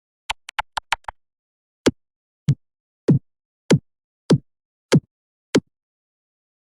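Electronic drum-machine sound effect: a quick run of six sharp high clicks, then seven short deep kick-like hits about 0.6 s apart, each dropping in pitch.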